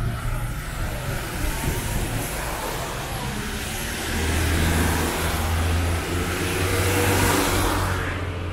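A motor vehicle passing close by on a city street. Its low engine hum strengthens from about four seconds in, and a tyre hiss swells to a peak near the end before fading away.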